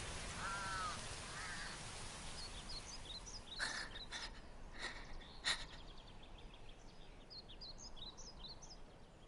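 Quiet countryside ambience: a crow caws about half a second in, with a fainter caw a second later, over a rush of noise that dies away. Small birds then chirp with short high calls, with a few soft taps among them.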